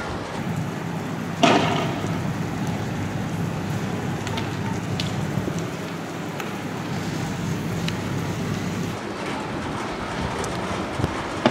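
Steady heavy rain with wind noise, broken by one sharp bang about a second and a half in.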